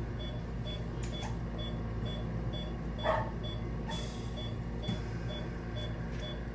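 Veterinary anaesthesia monitor beeping with each heartbeat, a short high beep about twice a second, over a steady low hum of operating-room equipment. A soft rustle of gloved handling about three seconds in.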